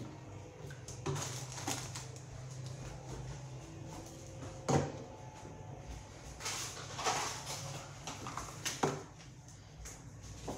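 Scattered knocks, clicks and rustles of items being handled and set out, with the sharpest knock about halfway through. A low steady hum underneath stops about a third of the way in.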